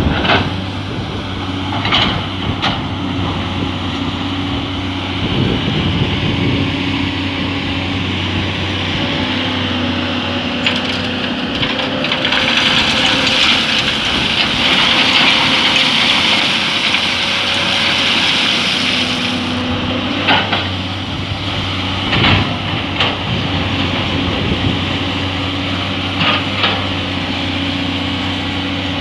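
Excavator diesel engine running steadily, its pitch shifting a little as the load changes. Several sharp knocks and clanks come through, and a stretch of hissing noise runs through the middle.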